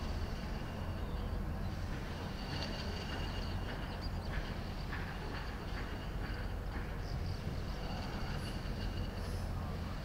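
Steady low rumble of distant traffic, with faint thin high tones that come and go.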